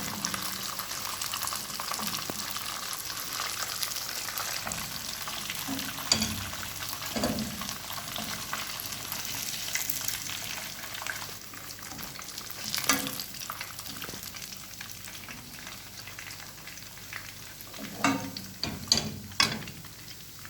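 Coated chicken pieces sizzling as they fry in oil. The sizzle eases a little halfway through. A few sharp knocks and clatters of a utensil against the pan come through it, several together near the end.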